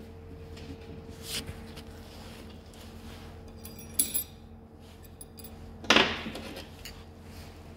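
Steel parts clinking and knocking on a steel workbench as a steel shaft with a ball bearing is handled: a few scattered clinks, a sharp ringing clink about four seconds in and the loudest knock about six seconds in.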